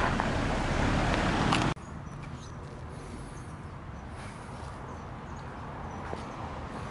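Footsteps crunching on snow with a loud steady hiss of outdoor noise, which cuts off abruptly about two seconds in. After that comes a quieter outdoor background with a few faint crunching steps.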